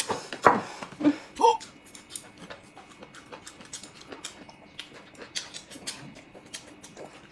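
Noodles being slurped and eaten with chopsticks: a few loud slurps in the first second and a half, then a steady run of small wet mouth clicks of chewing and sipping.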